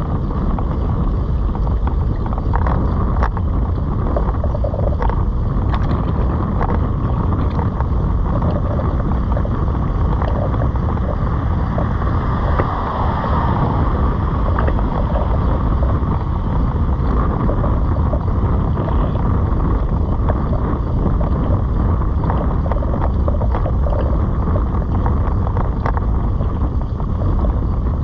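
Wind rushing over the microphone of a GoPro on a moving Citibike: a loud, steady low rumble, with scattered light clicks.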